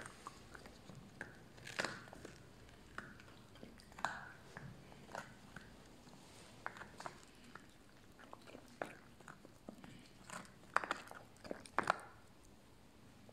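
Puppy gnawing a big bone, its teeth cracking and crunching on the bone in irregular sharp snaps, with a quick run of louder crunches near the end.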